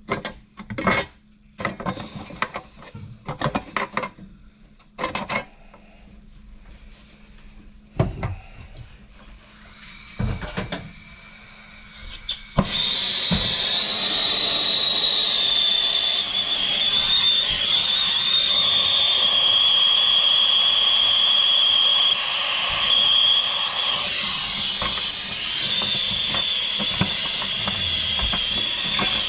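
Scattered clanks and knocks of tools and metal fittings being handled. About 13 seconds in, a plumber's torch comes on suddenly and burns steadily with a hiss and a high whistle, heating a pipe fitting.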